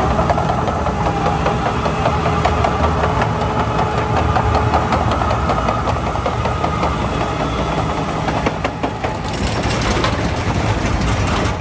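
Dynapac SD2500CS asphalt paver's diesel engine running steadily, with a dense rapid mechanical ticking and rattle over the engine note; the sound changes about nine seconds in.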